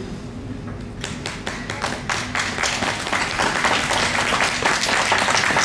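Audience clapping, starting about a second in and building steadily louder.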